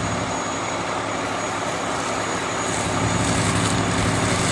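Fire engine's diesel engine running at a steady speed: a low, even drone with a faint high whine above it, a little louder from about three seconds in.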